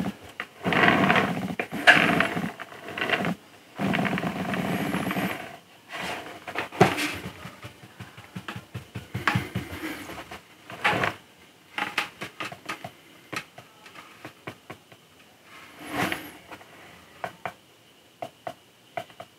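Small model-kit pieces being handled and test-fitted by hand: rustling handling noise for the first five seconds or so, then scattered light clicks and taps of parts against each other.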